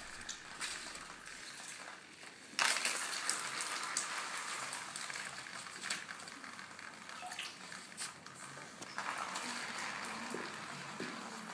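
Hissing, crackling electronic noise texture from a live Max/MSP improvisation, with scattered sharp clicks. It enters suddenly and louder about two and a half seconds in, then holds as a dense crackle.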